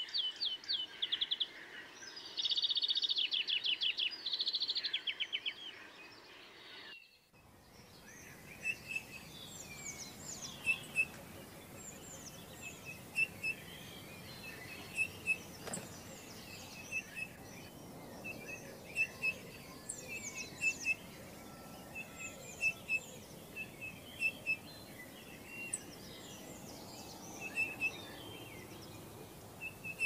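Small garden songbirds calling at a seed feeder: a fast, high twittering trill in the first few seconds, then after a brief break, repeated short high chirps and quick sweeping calls from several birds over a faint steady background hiss.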